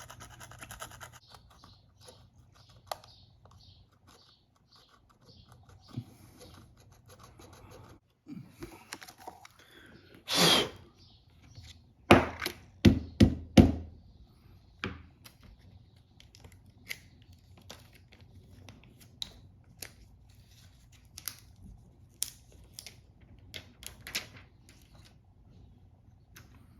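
Small tool scraping and picking old adhesive off a phone's frame. A louder scratchy rasp comes about ten seconds in, followed by a cluster of sharp clicks and taps, then scattered single clicks of the tool against the phone.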